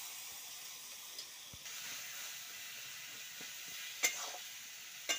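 Chopped vegetables sizzling in a metal kadai over a wood fire, a steady hiss, with a steel spatula clinking against the pan twice near the end as they are stirred.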